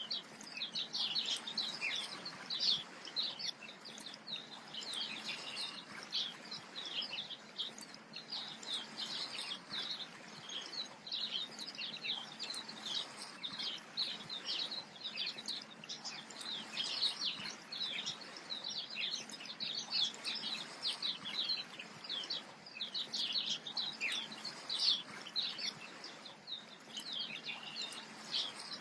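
Dense, continuous chirping of many small birds, short calls overlapping one another without pause.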